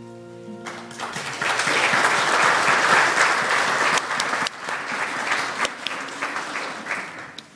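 The last held note of the music dies out about a second in, and a church congregation applauds: the clapping swells quickly, stays full for a few seconds, then thins to scattered individual claps near the end.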